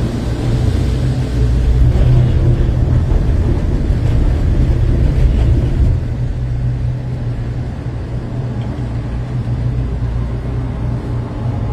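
Gondola cable car cabin's steady low rumble as it rides out of the station along the cable, a little louder for the first half and easing about halfway through as it clears the station.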